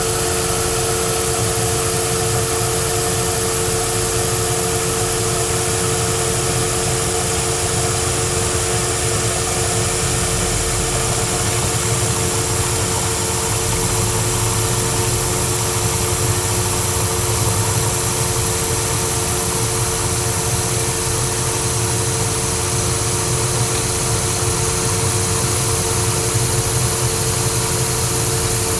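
Old Monarch lathe running steadily with a constant whine, taking a heavy cut on a hot-rolled 1018 steel bar.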